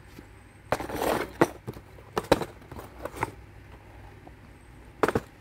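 Cardboard toy box being handled and turned in the hand: scattered crinkles and sharp clicks, with a longer burst about a second in and a pair of clicks near the end.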